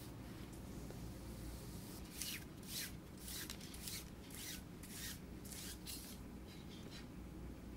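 Dry granules sprinkled by hand onto a wet baking mat on a metal sheet pan: a run of about seven soft, short hissing patters roughly half a second apart, starting about two seconds in.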